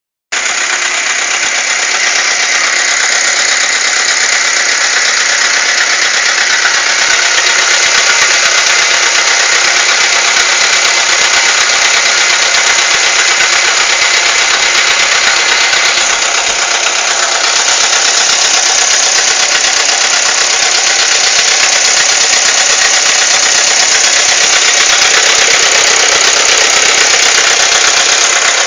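Nissan GA16DE 1.6-litre inline-four engine running steadily, with a loud, harsh mechanical noise high in pitch: the strange noise the owner is trying to show.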